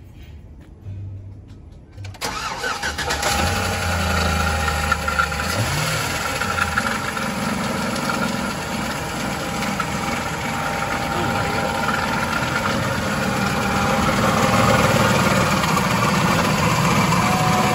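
Pickup truck engine cranking and starting about two seconds in, then running at idle with a steady whine over the engine noise. The owner suspects a failing water pump.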